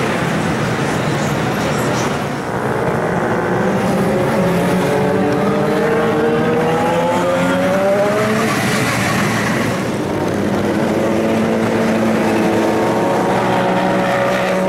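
Motorcycle engines running as bikes ride past, one revving up with a rising pitch in the middle, then a steady engine note near the end.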